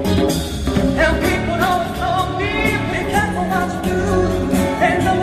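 Live concert performance of a male pop vocal group singing a medley over a band, with a steady drum beat and bass under gliding vocal lines.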